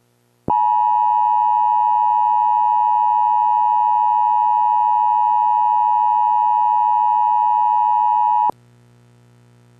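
Emergency Alert System attention tone: one loud, steady electronic tone held for about eight seconds that cuts off abruptly, leaving a faint low hum.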